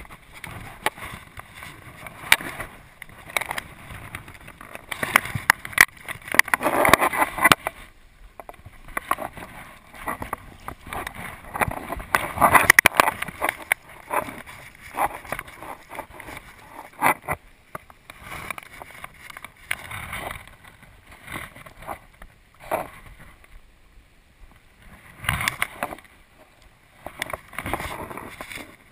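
River water running and splashing around a wading fly fisherman, with irregular bursts of rustling and a few sharp knocks as his hands and sleeves handle the landing net, fly rod and line close to the microphone.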